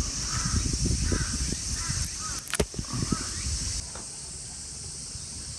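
Birds calling repeatedly over a steady high-pitched drone, with scattered knocks; all of it stops abruptly about four seconds in, leaving a low steady hum.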